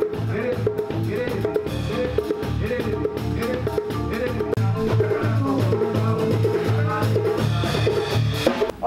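A live band of bass guitar, djembe hand drum and keyboard playing upbeat music with a steady bass pulse. The music cuts off suddenly near the end.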